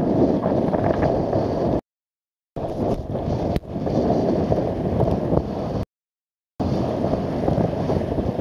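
Force 7–8 gale wind buffeting the microphone on a sailing yacht in rough seas, a dense low rumble with water rushing along the hull. The sound cuts out completely twice, for under a second each time.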